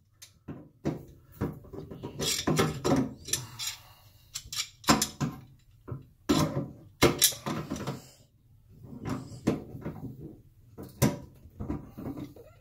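Channel-lock pliers gripping and turning a sink drain nut: irregular clicks, knocks and scrapes of the jaws on the fitting, in bursts with short pauses.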